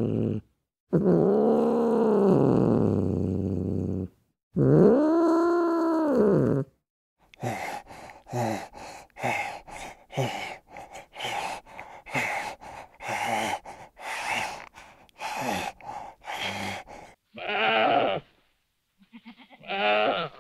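Animal calls: three long, loud calls that rise and fall in pitch, then a run of short, rapid calls lasting about ten seconds, and two more pitched calls near the end.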